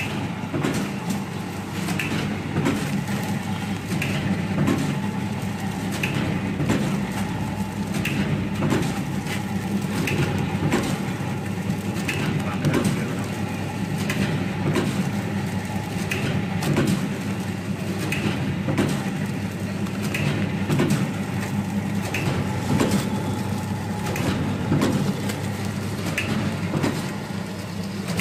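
Vertical form-fill-seal snack pouch packing machine running: a steady mechanical hum with a louder clack from its cycle about every two seconds.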